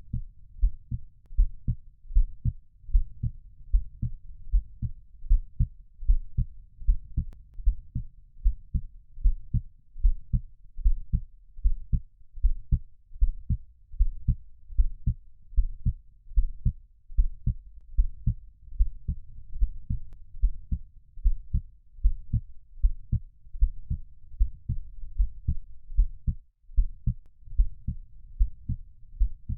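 Heartbeat sound: deep lub-dub double thumps in a steady, even rhythm.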